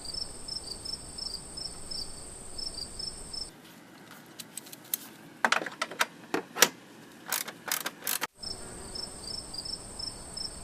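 Insects chirping in a steady high trill. About three and a half seconds in this gives way to a run of sharp, irregular metallic clicks from a ratchet and 10 mm socket working the intake screws. Near the end the insect trill returns.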